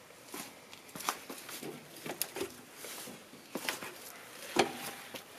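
Irregular clicks and light knocks of a bicycle being handled and mounted, with one sharper knock near the end.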